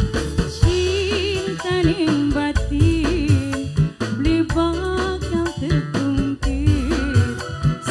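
A woman singing a Pantura-style song live with band accompaniment: a melody with vibrato over bass and regular drum beats.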